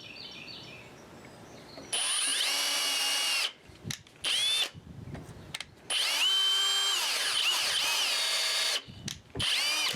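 Drill driving #12 wood screws into a very hard purpleheart blank, running in four bursts. Two longer runs have the motor's whine rising and then holding at a steady pitch, and two short blips snug the screws until their heads just touch.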